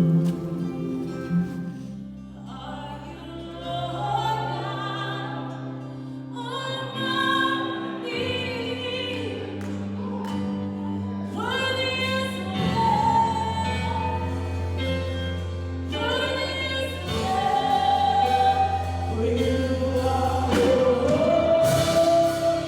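Worship music: voices singing long held notes with vibrato over sustained low chords.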